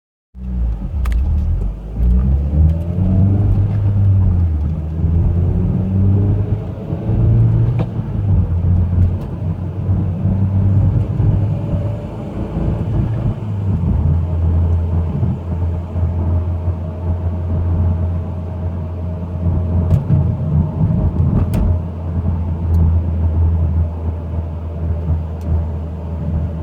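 Mitsubishi Lancer Evolution X GSR running with a steady rumble, over which an odd whine glides up and down in pitch in the first few seconds, then holds nearly steady later on. The owner suspects the transmission or transfer case and has heard it for about 30,000 miles.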